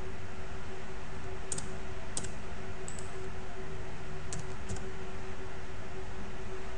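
Computer keyboard keys and mouse buttons clicking, about five separate clicks spread over a few seconds, over a steady electrical hum and hiss.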